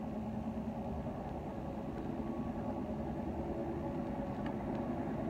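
Steady hum of a running motor, its pitch unchanging, slowly growing a little louder, with a couple of faint clicks near the end.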